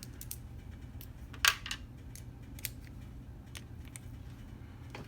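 Scattered small metallic clicks and clacks of small hand tools and bits being handled against the padlock, with a sharper clack about a second and a half in, over a low steady hum.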